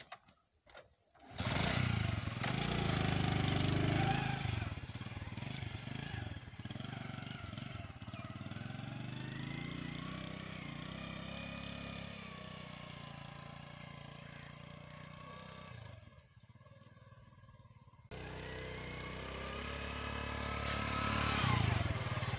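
A small Honda motorcycle's engine is kick-started and catches about a second in. It runs strongly at first, then grows fainter as the bike pulls away. Near the end it grows louder again, with a rise in pitch.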